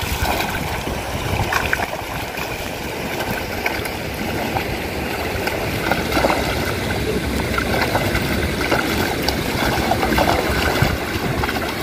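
Water splashing and sloshing as a cast net holding thrashing fish is hauled in by hand through shallow river water: a steady run of small splashes.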